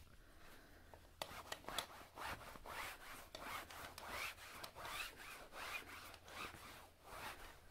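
Curtain fabric being rubbed and wiped in short scratchy strokes, about two a second, starting about a second in: the curtains being cleaned in place.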